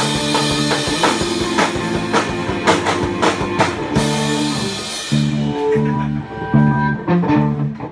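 A rock band playing live together: drum kit with cymbals and two guitars. About five seconds in the drums and cymbals stop, leaving the guitars playing alone.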